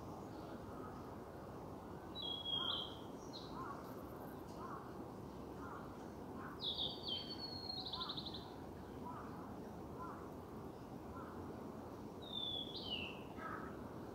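Wild songbirds calling: three loud, high-pitched phrases about two, seven and twelve seconds in, over a faint run of short, lower chirps repeated every second or so and a steady outdoor hiss.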